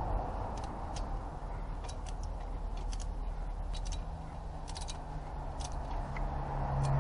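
Hand ratchet wrench clicking in short, irregular bursts as a bolt on the engine is turned, over a low steady hum.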